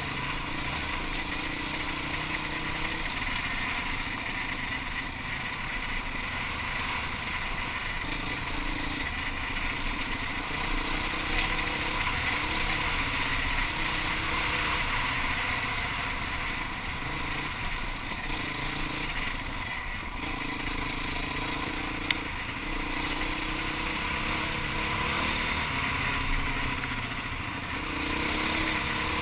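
Enduro motorcycle engine running on board as the bike is ridden over a gravel track, its note rising and falling with the throttle over a steady rush of noise. A single sharp knock about 22 seconds in.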